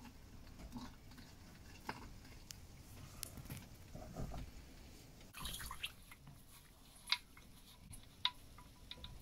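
Used engine oil draining in a thin stream from a car's sump into a drain container: faint dripping and trickling, with a few small clicks in the second half.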